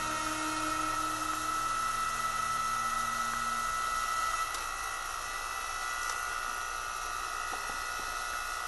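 Hydraulic log splitter's motor and pump running with a steady high whine. A lower hum drops away about three and a half seconds in.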